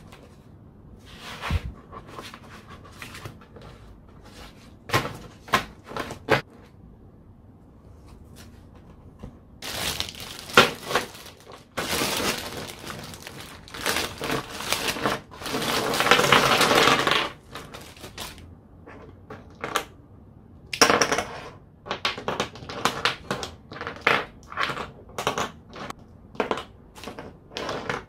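Plastic packaging crinkling and rustling as small products are handled, with light clicks and knocks of items being picked up and set down; a longer run of crinkling comes about halfway through.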